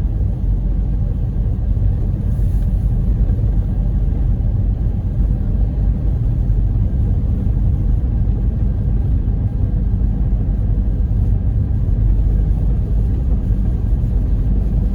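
Steady low rumble of a car being driven on a snowy road, heard from inside the cabin: road, tyre and engine noise with no sudden events.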